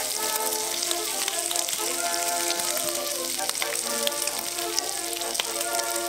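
Bacon strips sizzling in hot fat in a frying pan, a steady hiss with many small scattered pops, under background music with held notes.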